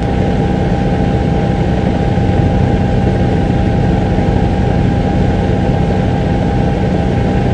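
Helicopter running steadily, a loud unbroken drone of rotor and engine with a constant whine above it.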